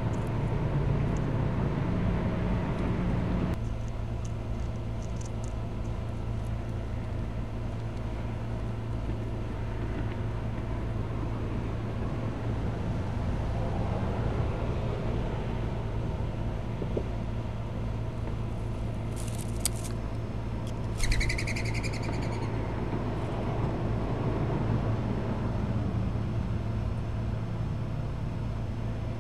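Steady low hum over a faint outdoor background rumble, a little quieter after the first few seconds. Two short, high bird chirps come about two-thirds of the way through, the second with a falling pitch.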